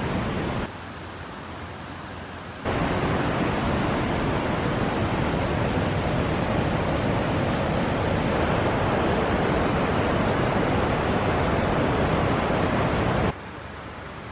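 Steady outdoor rushing noise. It drops to a quieter hush for about two seconds a little after the start, and again near the end.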